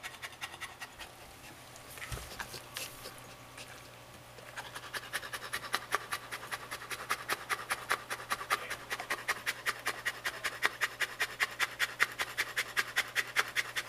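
Saint Bernard panting: fast, even, breathy pants, several a second, growing louder about four seconds in and then staying steady.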